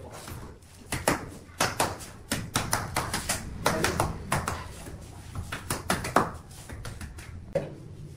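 Irregular sharp taps and knocks of hands on a granite countertop's backsplash strip, as they press and tap along it.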